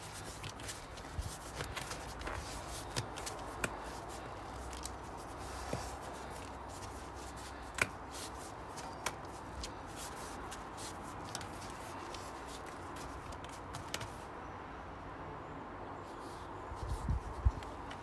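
Hands working a worn bicycle tyre on an alloy rim, with rubber rubbing and scattered small clicks and taps as the wheel is gripped and turned. A few low knocks near the end.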